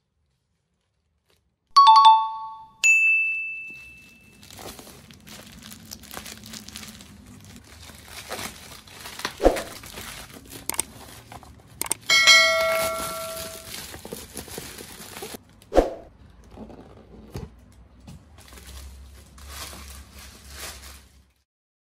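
Plastic mailer bag crinkling and rustling as it is handled and opened, with scattered clicks and a couple of sharp knocks. Short ringing chime effects sound twice near the start and once about halfway through.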